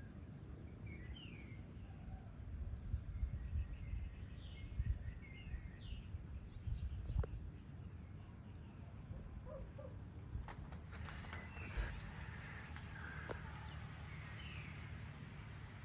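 Evening outdoor ambience: birds give short, sweeping chirps on and off, over a steady high-pitched insect drone. A low rumble swells in the first half, and a few sharp clicks come around the middle.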